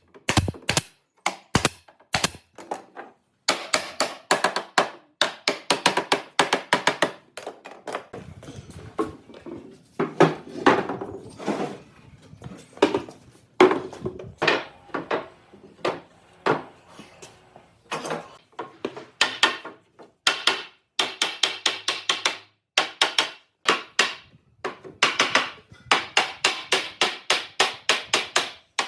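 Rapid series of light taps and knocks, several a second, in bursts with short pauses between them.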